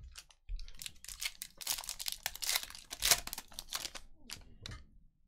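Foil wrapper of a Panini Mosaic football card pack being torn open and crinkled by hand: a rapid, uneven run of crackles, loudest around the middle.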